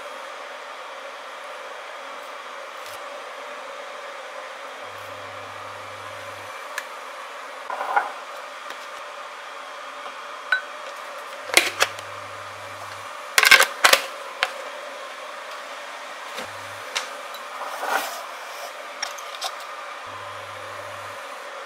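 Scattered clinks and knocks of kitchen handling: a plastic spoon, a glass chopper bowl and a digital kitchen scale set down and moved on a countertop, the loudest knocks about halfway through. They sit over a steady background hiss.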